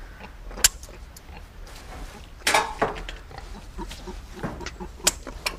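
Pigs grunting, with a few sharp knocks. The loudest knock comes about half a second in, and another comes near the end.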